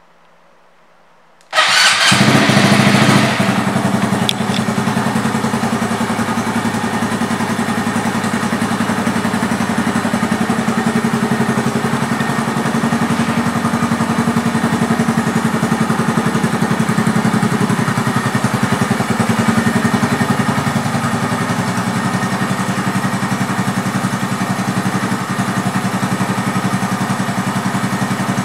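2021 Honda Monkey's 125 cc air-cooled single-cylinder engine, fitted with an aftermarket intake and exhaust, starting about a second and a half in. It is louder for its first two seconds, then idles steadily.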